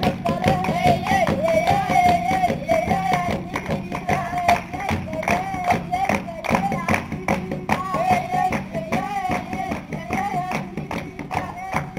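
A high voice singing a wavering melody over quick, steady hand clapping, as for a dance.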